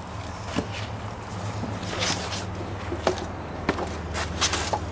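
Footsteps in work boots on a stone deck: a few scattered scuffs and knocks, over a steady low machine hum.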